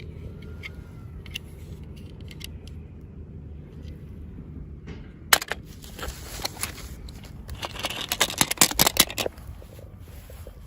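Plastic toy packaging being handled and opened: a sharp snap about five seconds in, then a dense run of crinkling crackles a couple of seconds later, over a steady low hum.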